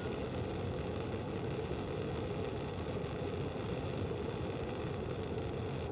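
Self-shielded flux-cored welding arc from a Lincoln Electric SP-140T wire welder, burning with a steady, even noise. The wire feed speed is set too low, giving low current, globular droplet transfer and heavy spatter.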